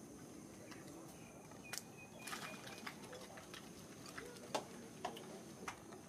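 Faint outdoor ambience: a steady high-pitched hiss, a short whistled note a little over two seconds in, and a few scattered sharp clicks.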